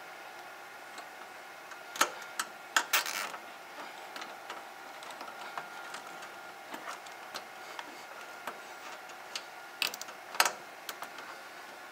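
Nylon zip ties being threaded and pulled tight around a bundle of cables: sharp plastic clicks and short ratcheting zips, loudest in a cluster about two to three seconds in and again near the end, with lighter ticks and handling in between.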